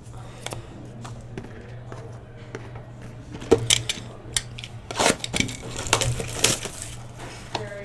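Trading cards and their plastic packaging being handled: clicks, taps and rustling that get louder and busier from about three and a half seconds in, over a steady low hum.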